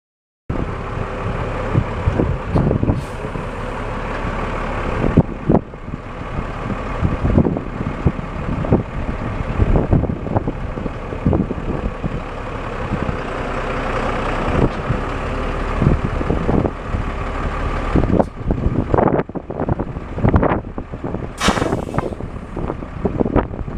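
Cummins 5.9-litre inline-six turbo diesel of a Freightliner FL70 truck idling steadily, with irregular thumps and crackles throughout.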